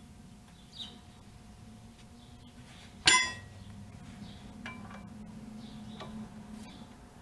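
Metal tools and parts clinking together as work begins on the hub: a few light clinks and one loud, ringing clink about three seconds in.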